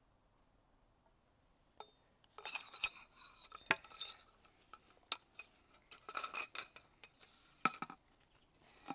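Metal parts inside a Suzuki DR650 front fork clinking and rattling as the fork is tipped and handled, in several short bursts of clicks starting about two and a half seconds in.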